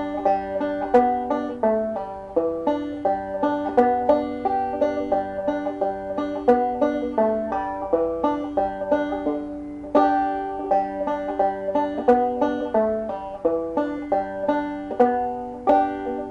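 Five-string banjo in double C tuning, played clawhammer style: the B part of an old-time fiddle tune picked note by note at a slowed-down tempo, with brushed strokes across the strings between the melody notes.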